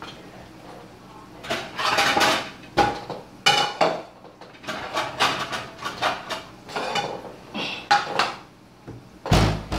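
Dishes and cutlery clattering: a string of clinks and knocks as plates and utensils are handled and a plate is set on the counter, with one heavy thump near the end.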